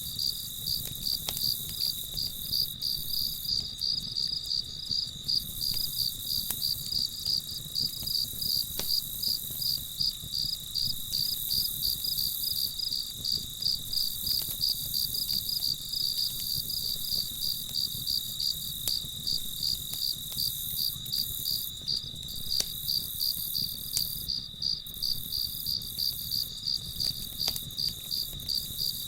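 Crickets chirping in a steady, even rhythm of several pulses a second, with a few faint scattered pops from a crackling campfire.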